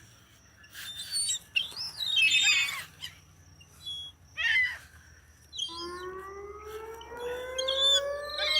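Seagulls calling in short squawks, then, from a little before six seconds in, a long tone that slowly rises in pitch and holds.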